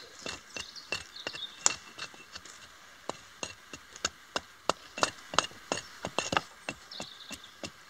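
Wood being struck and broken: a rapid, irregular series of sharp wooden knocks and cracks, busiest in the middle.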